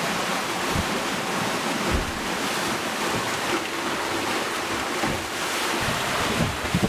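Steady rushing of wind on the microphone and water along the hull of a sailing catamaran under way.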